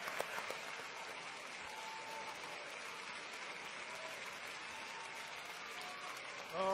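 Faint applause from an audience. Separate claps can be heard only in the first half second, then it thins into a steady hiss of crowd noise.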